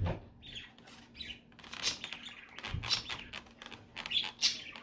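Plastic fork cutting and scraping pancakes against a foam takeout container: a run of short squeaks and scratches, with close-up chewing.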